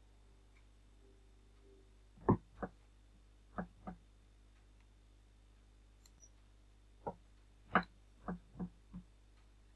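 Computer mouse clicking: about nine short clicks, several in quick pairs, in two bursts a few seconds apart, over faint steady hum.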